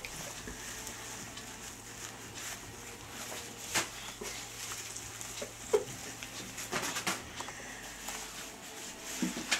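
Disposable diapers rustling and crinkling as a toddler handles and shakes them, with a few short, sharper crackles about four, six and seven seconds in.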